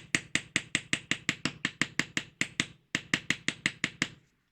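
Quick, light hammer taps on the corner of a kanna plane blade, about five a second, nudging the blade's lateral alignment in the wooden plane body. The tapping breaks briefly near three seconds in and stops a little after four seconds.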